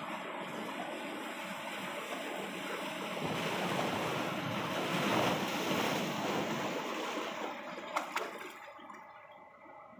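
Sea waves washing against rocks, the surge building for a few seconds and then ebbing away. Two short sharp clicks about eight seconds in.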